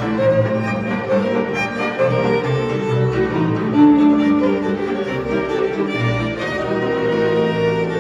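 Folk string band of violins and a double bass playing a tune together, the violins carrying the melody over the bass line.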